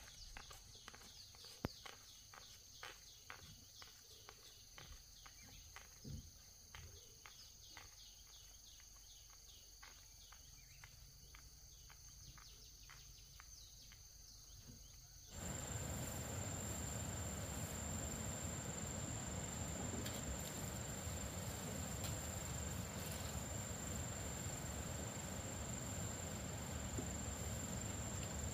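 Insects chirping steadily in a single high tone, with a run of light ticks about two or three a second over the first half. About halfway through the sound cuts abruptly to a louder steady hiss carrying a higher, continuous insect trill.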